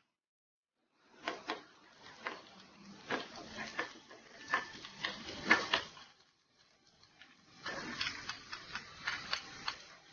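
A wooden spatula clicking and scraping against a wok while chopped garlic and onion fry in oil with a faint sizzle. The clicking starts about a second in, pauses around six seconds in and picks up again a second or so later.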